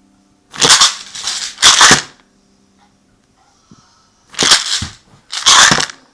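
A loud rattle, something shaken hard in short bursts: three shakes in quick succession about half a second in, then two more after a pause of about two seconds.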